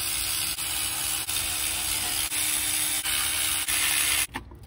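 A loud, steady rushing hiss with a faint steady hum beneath it, dipping briefly a few times and cutting off sharply about four seconds in.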